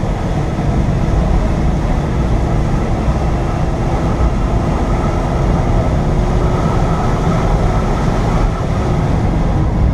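Car engine and tyre noise heard from inside the cabin while driving uphill, a steady low rumble with a faint steady whine over it.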